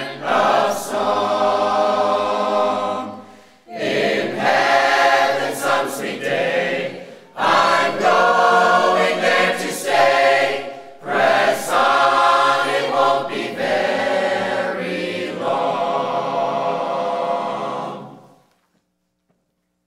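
Church choir of men's and women's voices singing a hymn in several phrases with short breaths between them, the final chord released a couple of seconds before the end.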